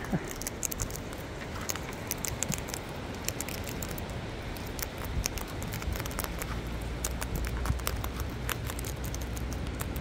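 Sulphur-crested cockatoos feeding from a plastic tray of seed mix: a steady scatter of small sharp clicks and cracks as their beaks pick up and husk the seeds.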